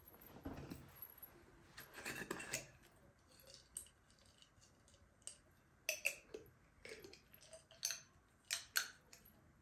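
Faint, irregular sharp clicks and snips, about a dozen of them, with a short cluster about two seconds in and the loudest near the end.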